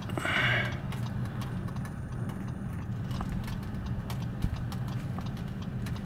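Salt River wild horses' hooves clopping on dry desert ground in scattered footfalls, over the steady low hum of the idling car they are heard from.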